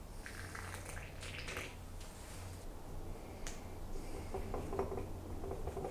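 Light clicks, taps and brief scraping from hand-tool work on wood, with one sharper click about halfway through and a faint steady low hum.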